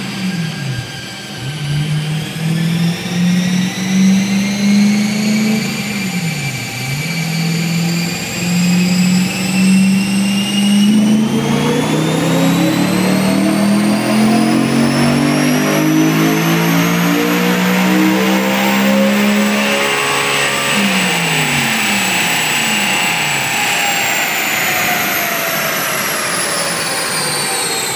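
BMW E92 M3's S65 V8, breathing through a Macht Schnell intake, test pipes and a Supersprint rear exhaust section, revving on a chassis dyno: two short drops in pitch in the first seven seconds, then a long full-throttle pull with the engine note and a high whine climbing steadily. About twenty seconds in the engine lets off and the note and whine fall away as the wheels coast down on the rollers.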